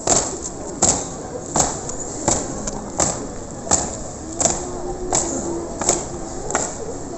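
A slow, steady marching beat: sharp single strikes evenly spaced about three-quarters of a second apart, ten of them in a row.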